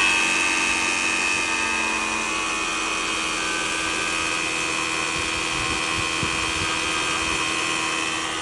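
Toyota Camry engine running cold, with a loud, steady high-pitched whine over the engine sound; this noise appears only while the engine is cold.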